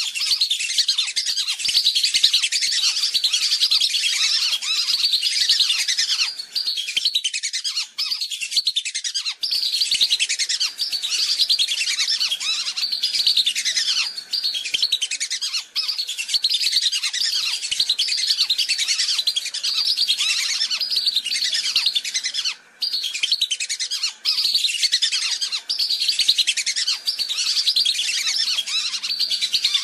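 Lesser whistling ducks calling as a flock in a bird-lure recording: many overlapping high whistles that fall in pitch, almost unbroken. The calling drops out for a split second a few times, most plainly about two-thirds of the way through.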